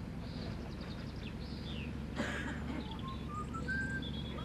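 Birds singing and chirping over a steady low engine hum, with a rising run of whistled notes near the end. A single sharp knock comes about two seconds in.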